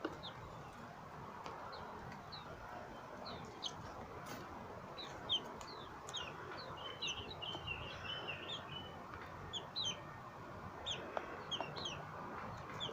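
Birds chirping: many short, high chirps, growing thicker from about halfway through, with a brief warbling run.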